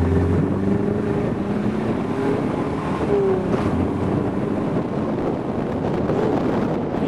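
Inline-six engine of an open rat rod running as it drives off, with wind buffeting the microphone.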